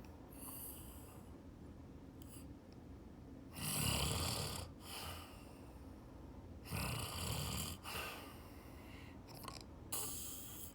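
A person snoring in sleep: two loud snores about three seconds apart, each lasting about a second, with fainter breaths near the start and near the end.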